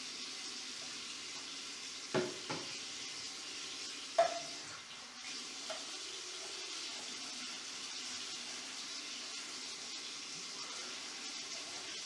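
Tap water running into a sink while a metal pot is scrubbed with a sponge and cleanser, with a sharp metallic knock about two seconds in and another, ringing briefly, about four seconds in as the pot is handled against the sink.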